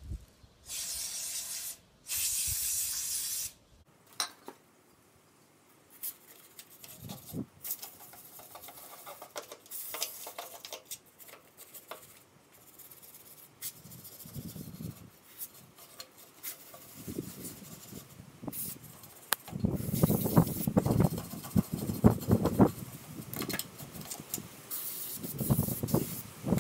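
Two hissing spray bursts near the start, the second a little longer, then scattered clinks, taps and scrapes of hand tools on a forklift's drum-brake parts. From about twenty seconds in, a gusty low rumble of wind on the microphone.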